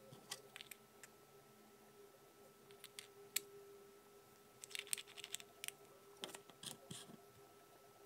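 Faint clicks and light taps of small 3D-printed plastic parts being handled, with one sharper click a little after three seconds and a quick run of clicks about five seconds in, over a faint steady hum.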